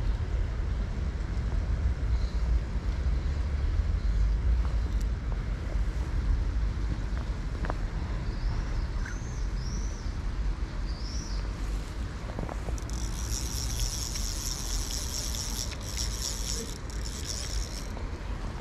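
Outdoor background noise: a steady low rumble, with four short high chirps in the middle and a dense high buzzing trill lasting about four seconds in the second half.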